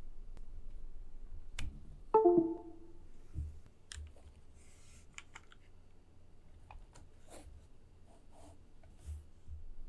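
Scattered clicks and taps of mechanical keyboard parts being handled, with one short, loud ringing ping about two seconds in that dies away quickly.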